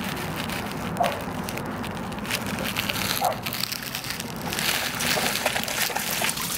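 Water splashing as a Vizsla wades and paws through shallow water, a crackling wash of splashes and drips.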